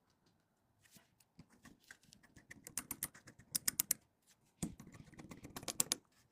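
Rapid small clicks and taps of hands and tools working on a phone during a repair, in two dense flurries of several clicks a second.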